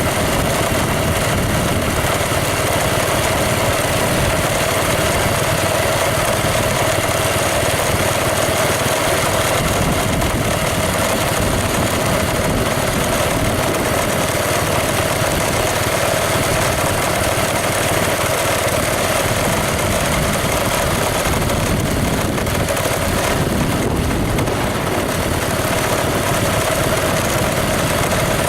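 An engine running steadily: a constant drone with a steady hum, unchanging in level.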